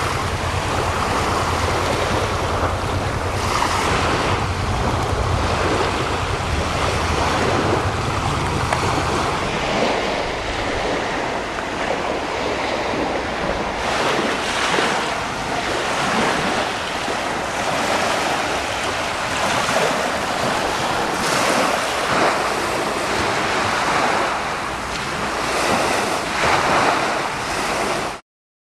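Sea waves washing on the shore, swelling every few seconds, with wind buffeting the microphone, heaviest during the first third. The sound stops abruptly near the end.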